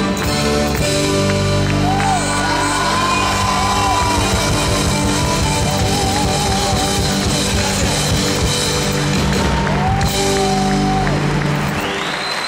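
Harmonica played into a microphone, with bending, wavering notes over a steady folk-dance accompaniment in a chacarera. The music stops near the end and the crowd starts to applaud.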